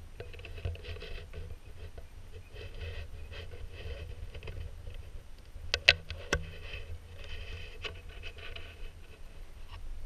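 Ducks calling in repeated short runs of quacks, over a steady low rumble. Two sharp clicks about half a second apart come near the middle, the loudest sounds.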